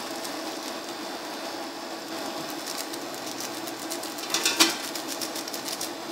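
Crinkling of a seasoning sachet as it is shaken and squeezed out over instant noodles, rustling most loudly a little over four seconds in. A steady low hum runs underneath.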